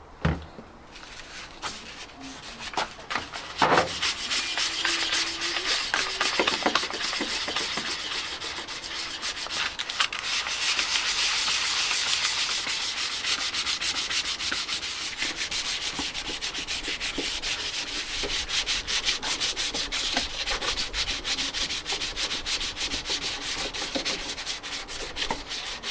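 Hand sanding of hardened body filler with wet-and-dry abrasive paper: rapid back-and-forth scraping strokes, steady after a few knocks in the first four seconds.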